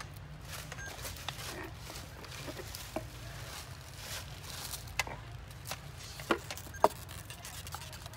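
Outdoor ambience: a steady low rumble with scattered light clicks and crackles, and a few sharper clicks in the second half, the sharpest near the end.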